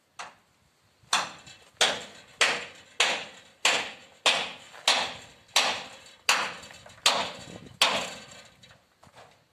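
Hammer blows struck at a steady pace: about a dozen sharp strikes, roughly one and a half a second, each ringing briefly before the next, tailing off near the end.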